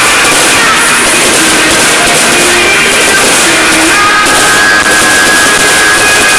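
Loud, overloaded stadium crowd noise with a few held sung or chanted notes showing through.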